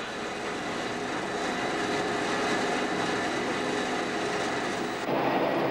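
Wheelset lathe turning a steam locomotive's coupled wheelset and re-profiling its tyre: a steady machine noise with faint high steady tones. About five seconds in, the sound turns duller.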